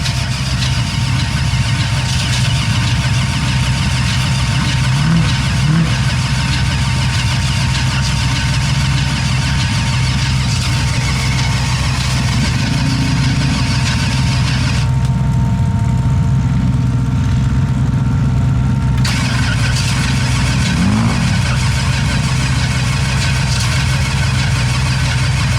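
A vehicle engine running steadily, with no change in speed.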